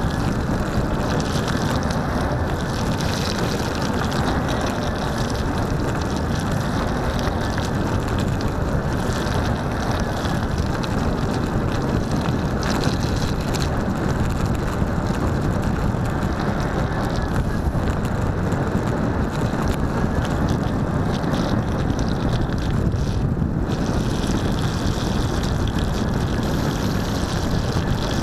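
Steady rushing noise from riding a Solowheel electric unicycle through rain. The wheel's tyre runs through water on a wet road while wind buffets the microphone.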